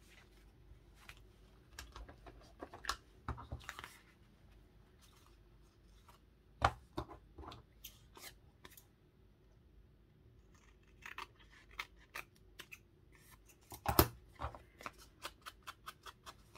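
Scissors snipping paper in short, scattered cuts, with a sharp click about seven seconds in and a louder one at fourteen seconds, followed by a quick run of small snips.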